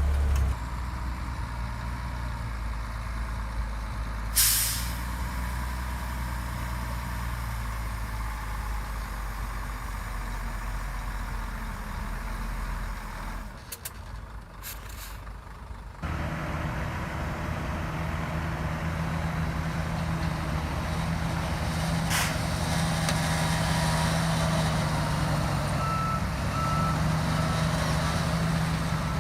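Heavy diesel earthmoving machinery at work: a low engine rumble broken by a sharp burst of air hiss about four seconds in. After a brief lull a stronger engine note takes over, with another hiss and short reversing beeps near the end.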